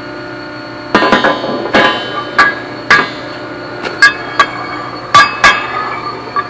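Steel press brake die segments clanking and ringing against the brake as they are set in place: about a dozen sharp metal knocks, beginning about a second in, over a steady shop hum.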